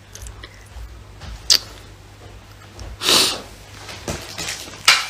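A short, loud breath through the nose about three seconds in, close to a phone's microphone, between two sharp clicks of handling noise, one about a second and a half in and one near the end.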